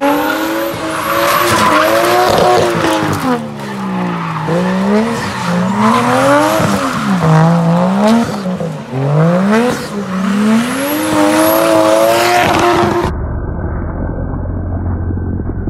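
A 1JZ-swapped Lexus IS300's turbocharged 1JZ-GTE straight-six is revved up and down over and over while the car does donuts, its rear tyres spinning and squealing. About thirteen seconds in, the sound cuts abruptly to a muffled rumble.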